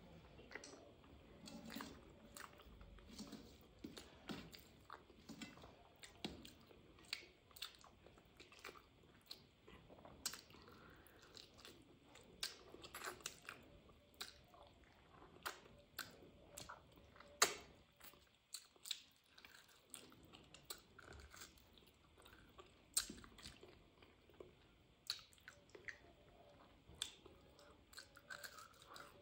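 Faint, close-up chewing and wet mouth clicks of a person eating rice and curry with her fingers: a steady run of irregular sharp clicks, several a second, with one louder click a little past the middle.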